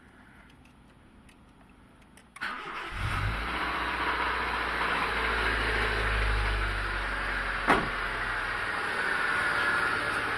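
Honda Civic engine starting about two seconds in, after a few faint clicks, then running at idle. The connecting-rod bearings are knocking: worn rod bearings. A single sharp crack stands out about three-quarters of the way through.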